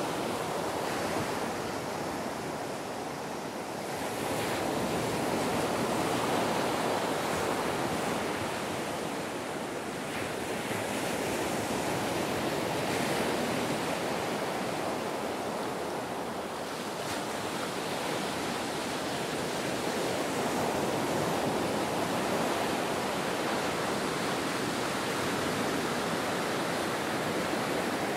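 Ocean waves breaking and washing on a beach, a continuous rush of surf that swells and eases every several seconds.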